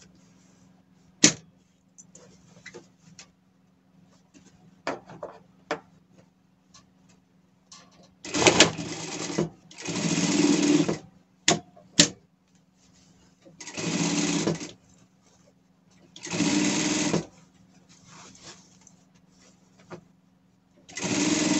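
Industrial lockstitch sewing machine stitching a seam in five short runs of about one to two seconds each, with pauses between them and a few sharp clicks.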